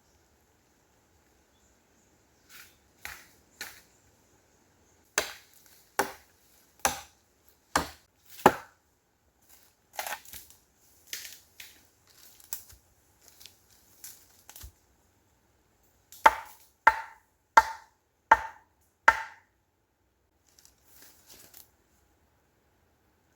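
Repeated chopping blows: a run of five evenly spaced strikes about five seconds in, lighter scattered knocks, then a second run of five, each of these ringing briefly.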